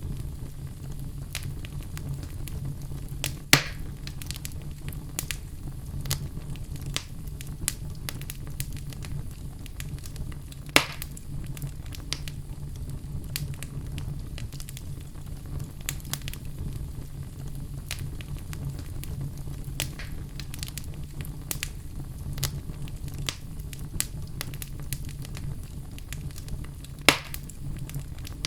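Wood fire burning in a fireplace: logs crackling with frequent small snaps over a low steady rumble, and three louder pops spaced through it.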